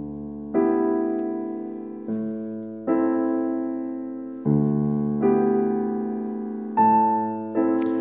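Slow piano chords as an interlude, each struck and left to ring and fade, with a new chord every second or so.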